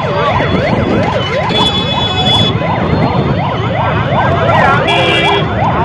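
Several emergency-vehicle sirens sound at once in quick rising-and-falling sweeps over busy road traffic. Vehicle horns honk briefly about two seconds in and again near the end.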